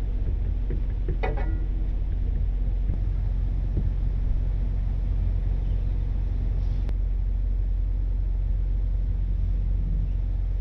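International rollback tow truck's diesel engine idling steadily, heard from inside the cab, with a few faint scrapes and knocks of a squeegee working across the windshield.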